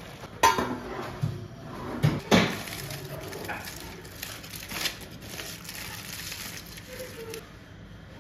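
Aluminium foil being unwrapped by hand from a steamed food packet, crinkling and rustling, with a few sharp crackles in the first couple of seconds. The rustling stops about seven seconds in.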